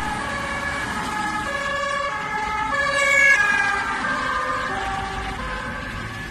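Ambulance siren alternating between pitches, a cut-in sound effect. It swells to its loudest about three seconds in, where its pitch slides down a little as if passing, then fades slightly.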